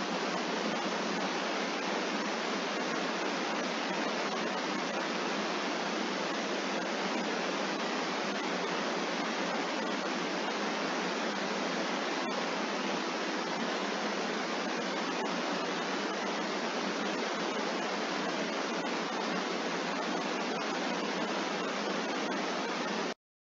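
A steady, even hiss of noise with no coughs in it, unchanging in level, cutting off abruptly near the end.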